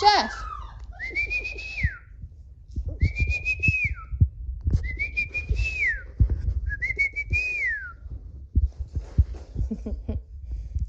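A dog whining: four drawn-out, high-pitched whines about two seconds apart, each rising, holding, then dropping off at the end, with soft low thumps of movement underneath.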